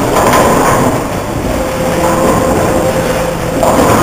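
Bowling alley din: balls rolling down the lanes and pins clattering, with a louder burst of crashing near the end.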